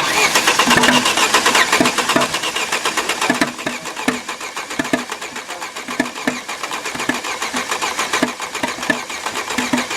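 Opel Astra H 1.6-litre engine, built from mismatched Z16XER and A16XER parts, running roughly with a dense rapid knocking and an uneven stronger beat about once a second. It is loudest for the first few seconds, then drops. The hard knocking and rough running are the signs of the mismatched engine build.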